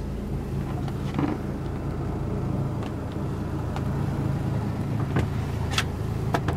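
The barge's 110 hp six-cylinder Mercedes diesel idling steadily, heard from inside the cabin, with a few sharp clicks near the end.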